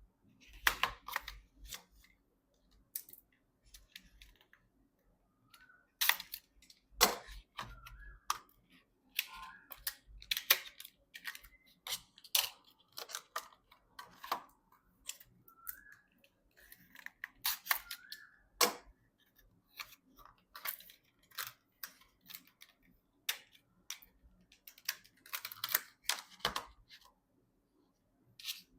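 PC parts and their packaging being handled: irregular sharp clicks and taps mixed with rustling and a few short squeaky scrapes, over a faint steady hum.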